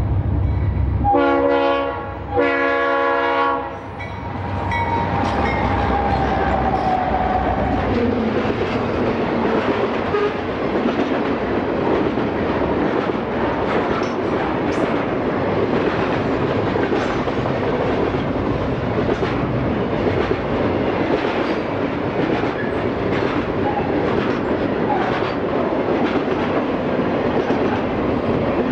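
Diesel freight locomotives sound a multi-chime air horn twice, each blast about a second long, over the low rumble of their engines. After that, a double-stack container train rolls past with steady wheel noise and repeated clicks of wheels over rail joints.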